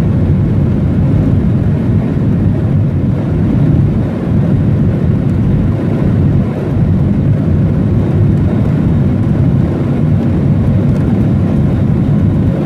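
Steady rumble of a Boeing 737's jet engines at taxi power, heard inside the cabin as the airliner taxis.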